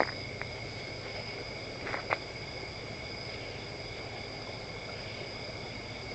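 Night insects calling in a steady, unbroken high chorus. A few sharp clicks come at the very start and about two seconds in.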